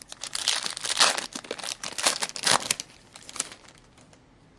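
Foil wrapper of an SP Authentic hockey card pack crinkling as it is torn open and handled: a dense run of crackles for about three seconds that thins out and stops near the end.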